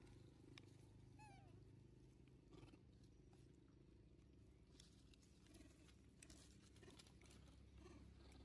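Near silence with a low steady rumble. About a second in there is one brief, faint squeak from a young macaque, and a few faint ticks follow later.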